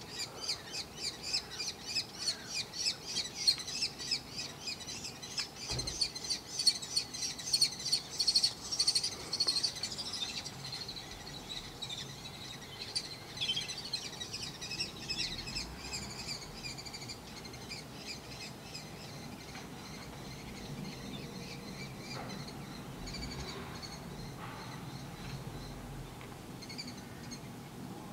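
Common kestrels calling in a rapid series of high-pitched calls, about four a second, loudest for the first ten seconds, then thinning out and fading. These are the food-begging calls of young kestrels as a parent brings food to the nest.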